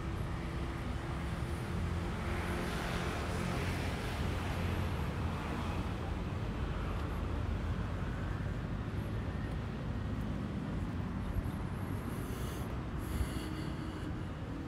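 Steady low engine hum under outdoor wind noise, with a brief higher-pitched sound near the end.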